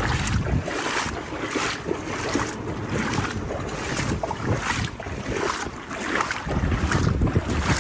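Strong wind buffeting the microphone over a steady rush of wind and water. A low rumble from the gusts swells again near the end.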